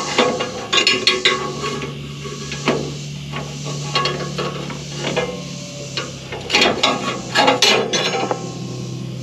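Metal clanks, knocks and ratcheting clicks of hand-tool work on machinery, over a steady low hum that sets in about a second in.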